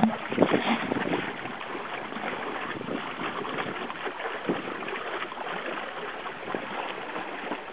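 Water rushing along the hull of a small sailing outrigger canoe under way in a strong breeze, with wind on the microphone. A few sharp knocks in the first half second, then a steady rushing.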